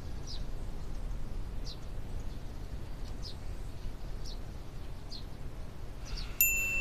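Short, falling bird chirps about once every second or so over a low steady hum. Near the end a bright chime-like note rings out and background music begins.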